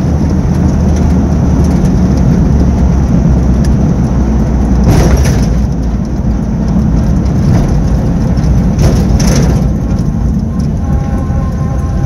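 1975 Pontiac Firebird on the move, its engine and road noise heard from inside the cabin as a steady low drone. Two brief louder rushes come about five and nine seconds in.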